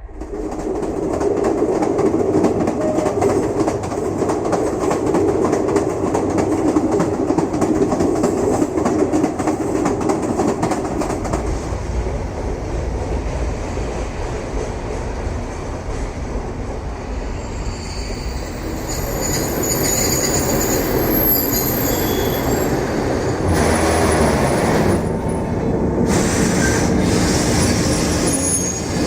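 A train running on the track: a steady rolling rumble that starts suddenly, with high, thin metallic wheel squeals joining in from about two-thirds of the way through.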